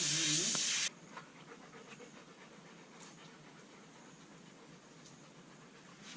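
A loud spraying hiss that cuts off suddenly about a second in, then a dog panting faintly.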